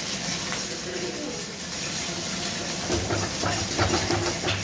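Ketchup-and-white-vinegar sauce sizzling in a wok, with a ladle stirring and scraping it. The scrapes and clinks grow busier in the second half.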